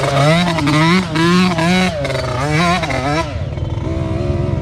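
Yamaha YZ65 two-stroke dirt bike engine revving, its pitch swinging up and down about once a second as the throttle is worked. About three seconds in it settles into a steadier, duller running sound.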